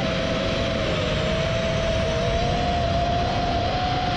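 Armattan Rooster 5-inch FPV quadcopter's brushless motors whining at a steady pitch in fast forward flight, wavering slightly, over wind rush on the onboard GoPro microphone.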